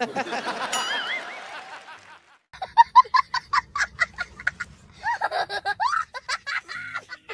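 Laughter: a first burst that fades away by about two seconds in, then a young child laughing hysterically in rapid, high-pitched bursts over a low rumble.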